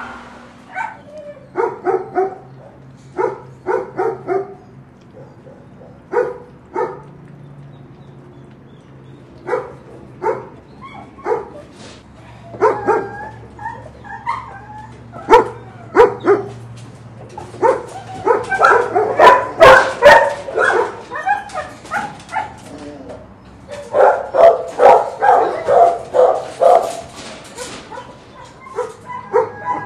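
Dogs barking in shelter kennels: single barks scattered through the first half, then two spells of rapid, overlapping barking, one a little past halfway and one near the end.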